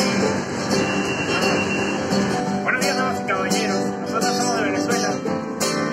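Steel-string acoustic guitar strummed in a steady rhythm inside a moving metro carriage, over the train's running noise.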